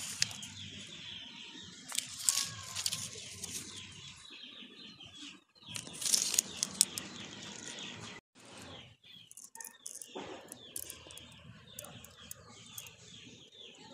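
Small birds chirping repeatedly in the background, with a few bursts of rustling and handling noise from leaves brushing the phone about two and six seconds in.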